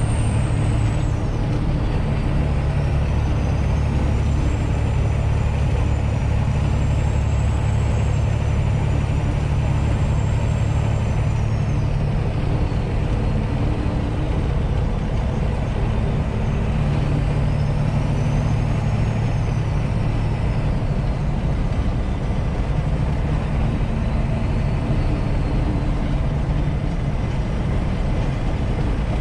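Semi truck's diesel engine and road noise inside the cab while cruising, a steady low drone, with a faint high-pitched whine that rises and falls slowly.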